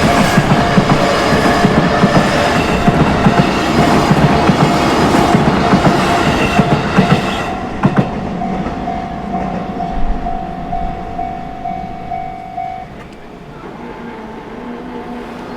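An electric train passes over a level crossing with loud wheel clatter and rail noise, fading away about seven and a half seconds in. Through it, the crossing's warning bell rings in a steady repeating pattern and stops about thirteen seconds in.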